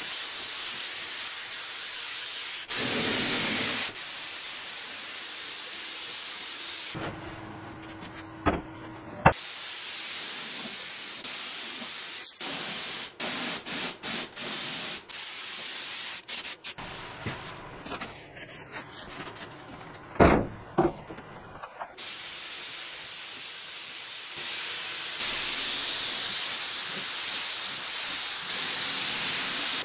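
Compressed-air spray gun hissing as it sprays finish, in passes that start and stop with the trigger. A few sharp knocks come in the middle.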